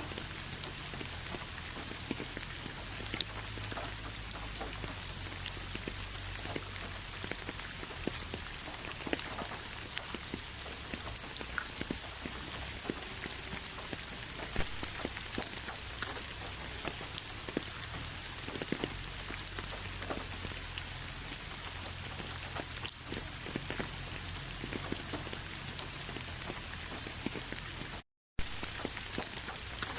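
Steady rain falling on a surface, a constant hiss dotted with many individual drop taps. About two seconds before the end, the sound cuts out completely for a fraction of a second, then comes back.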